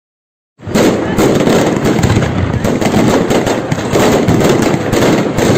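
A dense barrage of fireworks and firecrackers going off in rapid succession, many overlapping bangs and crackles. It starts suddenly about half a second in, after silence.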